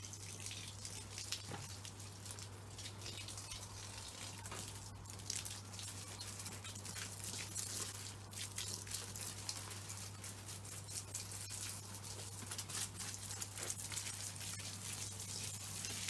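Garden hose spraying water onto shrubs and plants: a steady hiss with a fine crackling patter of water on leaves.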